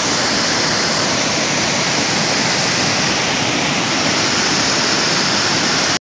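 Waterfall pouring down a rock face into a plunge pool: a steady, loud rush of falling water.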